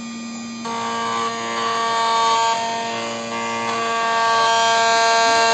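Automatic key-cutting machine running as it cuts a car key: a steady whine of several tones from its motors, some dropping out and coming back a few times.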